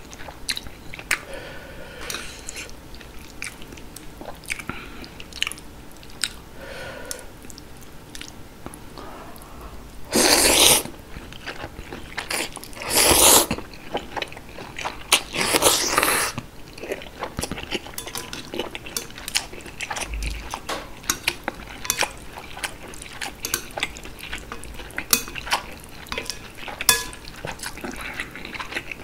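Close-miked eating of spicy chewy noodles in broth: steady chewing with wet mouth clicks, and three loud slurps of noodles around the middle.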